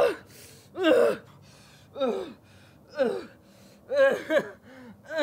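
A man gasping and crying out in pain, short breathy cries that fall in pitch, about one a second.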